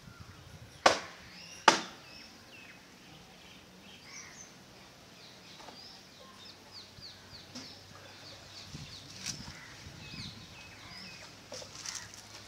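Two sharp knocks less than a second apart near the start, then small birds chirping and twittering throughout.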